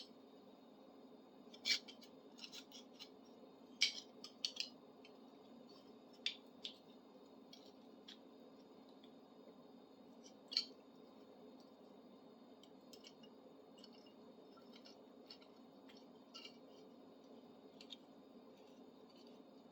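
Small metal parts of a tubing cutter clicking and clinking as it is put back together by hand: a dozen or so sharp, irregular taps, the loudest about 2, 4, 6 and 10 seconds in, over a faint steady hum.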